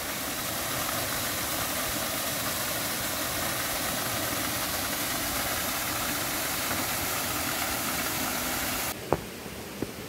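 Waterfall rushing over granite rock, a steady hiss of falling water. It cuts off abruptly near the end, leaving quieter stream noise and two sharp knocks.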